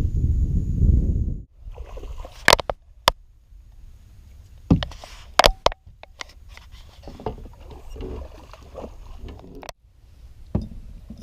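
Wind rumbling on the microphone, cutting off suddenly after about a second and a half, then a run of sharp knocks and clunks as gear bumps against the hull of a small fishing skiff.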